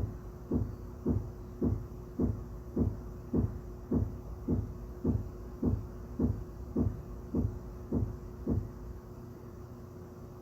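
Dull rhythmic thumps from the ceiling, about two a second, each dropping in pitch, sixteen in a row before they stop near the end, over a steady hum.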